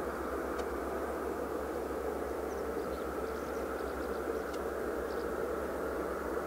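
Jet engines of a Boeing 737-800, CFM56-7B turbofans, running at taxi idle: a steady, even rumble and hiss that doesn't change. Faint high chirps come through between about two and five seconds in.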